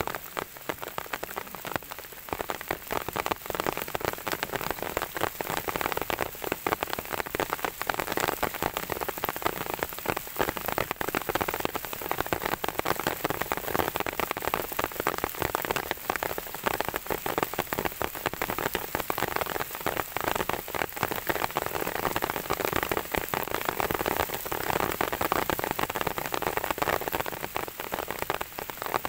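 Heavy rain falling: a dense, steady patter of many drops.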